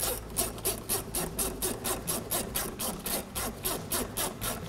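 Hand ratchet on a socket extension clicking in a steady rhythm, about five clicks a second, as a nut is run down.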